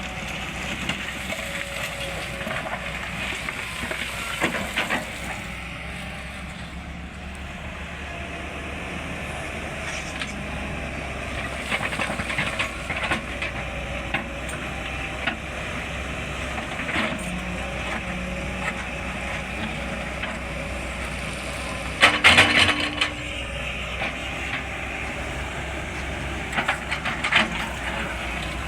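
Sany SY210 excavator running with a steady low engine rumble, and occasional clanks and scrapes of the bucket or machine working, the loudest a sharp clatter about two-thirds of the way through.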